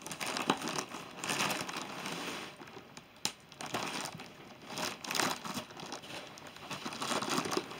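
Plastic wrapping on a rolled latex mattress crinkling and rustling in irregular bursts as the roll is pulled out of its cardboard box, with one sharp snap about three seconds in.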